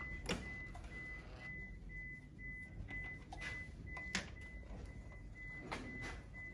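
A faint electronic beeper sounding short high beeps, about two a second, that stop near the end. A few clicks and knocks come from the compression gauge and its hose being handled on the engine's cam cover as it is moved between spark-plug holes.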